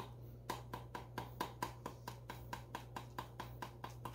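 Black pepper being dispensed from a pepper container: a quick, regular series of light ticks, about four a second, over a low steady hum.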